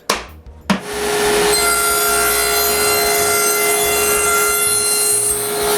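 A power cutting tool starts about a second in and runs steadily with a constant whine as it cuts a wide groove in hardwood stock.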